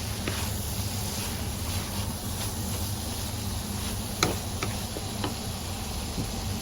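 Metal spatula scraping and clicking against a wok as chillies and spices are stir-fried, with one sharper knock about four seconds in, over a steady low hum.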